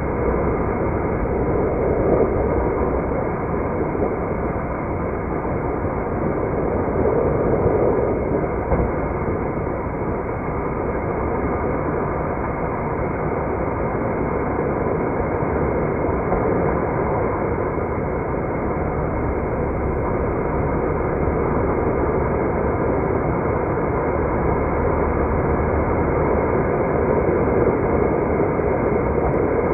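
A car driving along a road: steady engine and tyre noise that rises and falls gently, with no sharp sounds.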